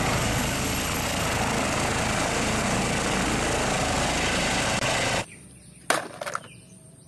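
A full-size helicopter's turbine and rotor running loud and steady with a low beating as it lifts off, until the sound cuts off abruptly about five seconds in. A couple of faint clicks follow.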